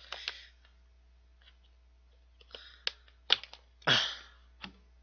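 Clear plastic sandwich wedge package crackling and clicking as it is pried open; it is hard to open. Three sharp clicks come in quick succession a little past the middle, followed by a short breathy exhale and one more click near the end.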